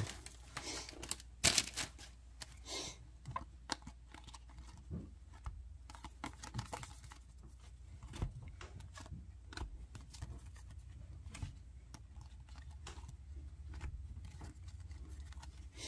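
Baseball cards being sorted by hand: a scatter of soft clicks, taps and rustles as cards are slid off a stack and dropped onto piles, busiest in the first few seconds and lighter after.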